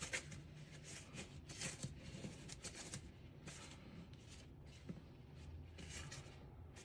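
Faint rubbing and scraping of hands turning a toilet's water supply shutoff valve closed by hand, with scattered light handling noises.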